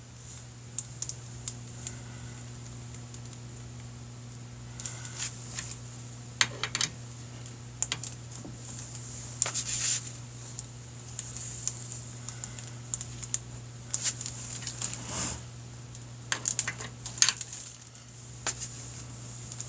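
Irregular sharp clicks and clinks of hand tools on metal, some in quick clusters, over a steady low hum.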